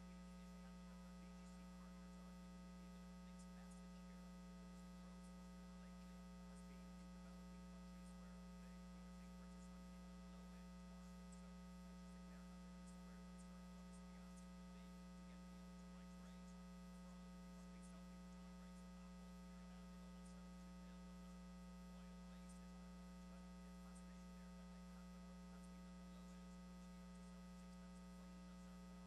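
Near silence with a steady electrical mains hum, unchanging throughout.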